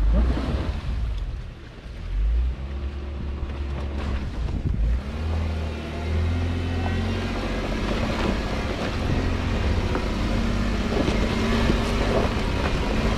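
Jeep Wrangler Rubicon's engine running as it crawls along a dirt and gravel trail, its note rising and falling a little, with tyre noise on the gravel and wind on the microphone.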